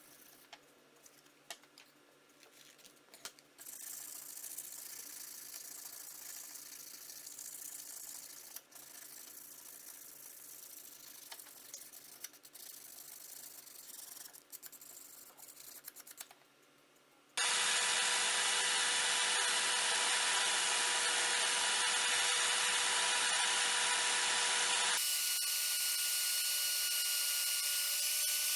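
Scraping and rubbing on metal with scattered light clicks, then, from about two-thirds of the way in, a small electric power tool running steadily with a whine. The whine changes pitch once near the end.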